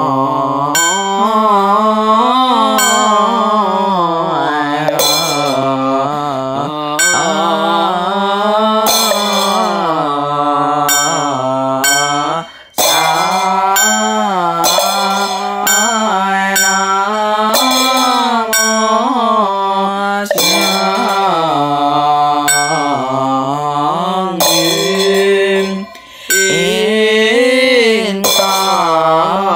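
Mahayana Buddhist liturgy chanted in Chinese: a voice holding long notes that slide up and down, with a short struck beat about once a second keeping time. The chant breaks off briefly twice.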